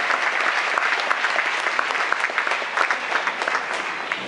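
Audience applauding, the clapping thinning out and fading toward the end.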